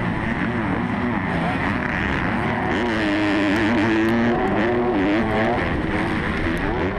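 Motocross bike engine heard up close from the bike itself, racing hard with its pitch rising and falling constantly as the rider works the throttle and gears.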